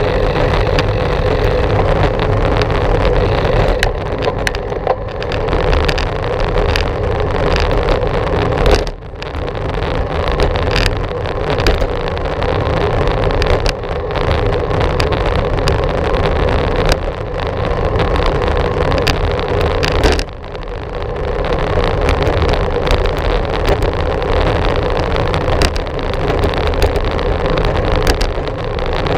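Steady rush of wind and tyre noise from a moving bicycle on a GoPro Hero 4's microphone, easing briefly twice, about a third of the way in and again about two-thirds in.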